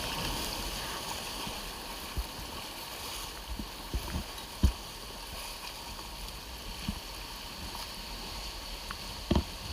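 Steady rushing noise of moving water around a raft, broken by a handful of short, dull low thumps, the loudest near the middle and again near the end.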